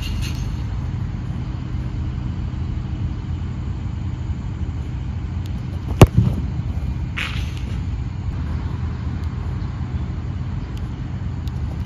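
A football struck hard with the boot once, about halfway through: a single sharp kick that stands out over a steady low rumble in the background.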